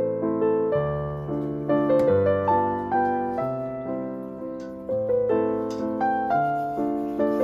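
Background piano music: a gentle melody of struck notes over slower bass notes.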